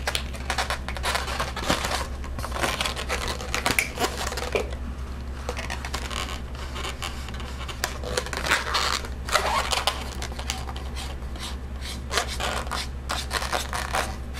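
Inflated latex twisting balloons squeaking and rubbing against each other and against the hands as the finished balloon elephant is handled and shaped, in a run of short scratchy squeaks.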